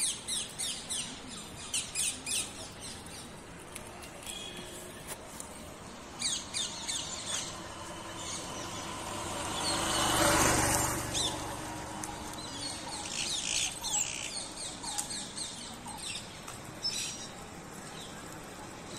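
Small birds chirping in quick runs of short calls, in several bouts. About halfway through, a rushing noise swells and fades over a few seconds.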